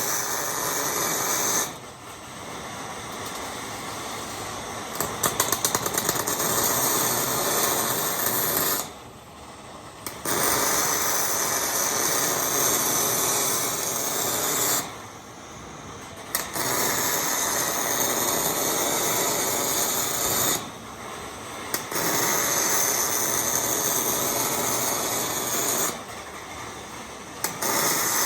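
MIG welder arc crackling and hissing in a series of short welds on hex mesh. Each weld runs about four to five seconds, with a pause of a second or two between them.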